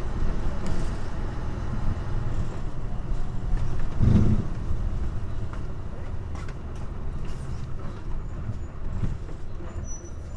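Hino Blue Ribbon KC-HU2MMCA bus engine revved hard under heavy load, heard from inside the bus as it climbs a steep hill in a low gear, with cabin rattles. About four seconds in there is a louder low thump.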